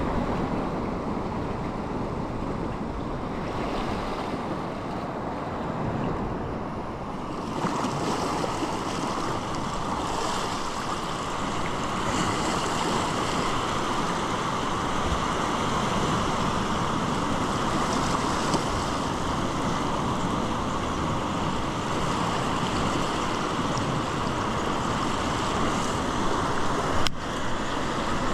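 Ocean surf surging and washing over rock ledges, a steady rush of water with a hiss that grows brighter several seconds in. A single sharp click near the end.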